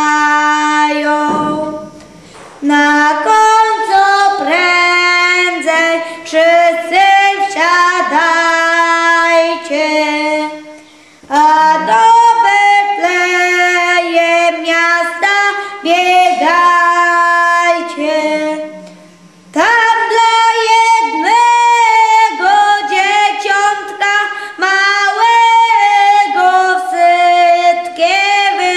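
A boy singing a folk song unaccompanied, in long held phrases with three short pauses for breath.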